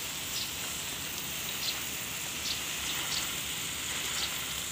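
Water spraying steadily onto plants and soil as a garden is watered: an even, rain-like hiss.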